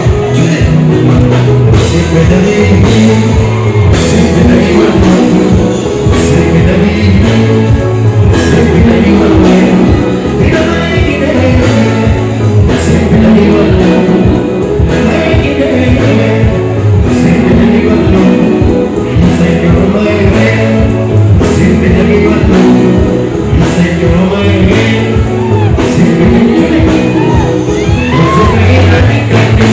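Live band music with a male lead singer: a steady repeating bass line, drums and guitar under the vocals, played loud and unbroken through the PA.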